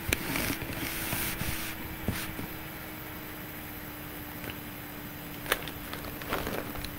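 Rustling and handling noise with a few sharp clicks and a short scrape, over a steady low hum and hiss.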